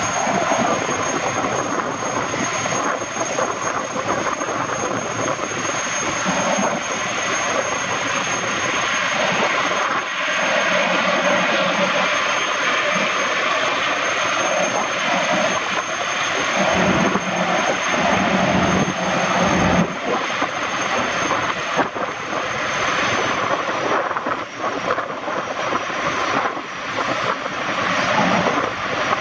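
Boeing 929 Jetfoil's twin Allison gas turbines running with a thin, steady high whine over the rush of its waterjets and wake. Near the end the whine slides down in pitch as the vessel throttles back.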